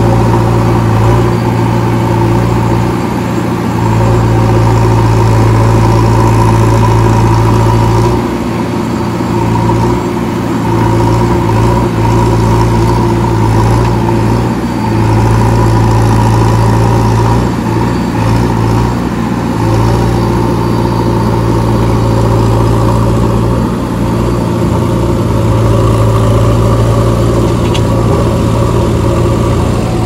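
JCB backhoe loader's diesel engine running hard under load as its backhoe bucket pushes a stuck, loaded tractor trolley. The engine note eases off and builds again every few seconds.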